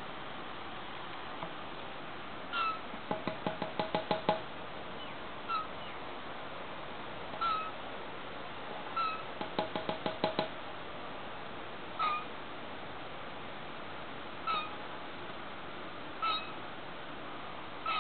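Young tawny frogmouth calling: short squeaky calls every couple of seconds, broken twice by quick bursts of rapid pulsed notes, about seven a second.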